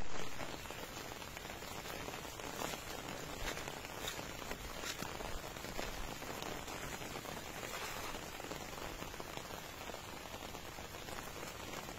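Steady rain falling on the standing water of a flooded rice paddy and the grass around it: an even hiss with a few slightly sharper drop spatters.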